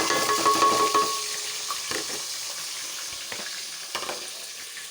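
Sliced onions frying in hot cooking oil in a pot: a steady sizzling hiss, loudest in the first second and then settling, with a few light knocks of a spoon stirring.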